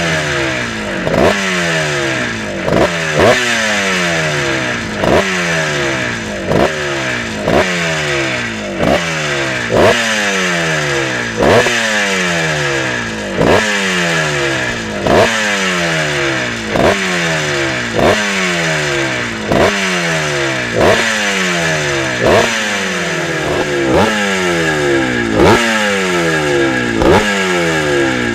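Classic air-cooled single-cylinder motocross bike engine revved in short throttle blips, about one every second and a half or so: each one rises sharply and then falls back towards idle.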